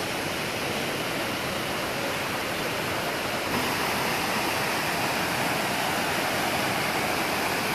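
Steady rushing of a small rainforest stream cascading over rocks, a little louder from about three and a half seconds in.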